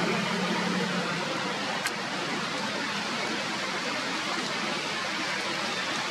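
Steady, even hiss of background noise, with a low hum that fades out about a second in and a single faint click near two seconds.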